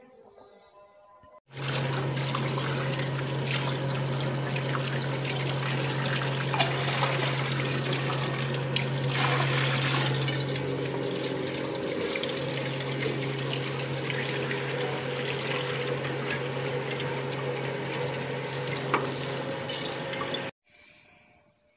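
Electric water pump motor running with a steady hum while water runs from a tap into a washbasin. It starts abruptly about a second and a half in and cuts off just before the end.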